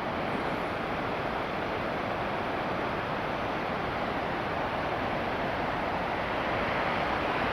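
Steady rushing water of a mountain stream, an even, unbroken noise that grows slightly louder.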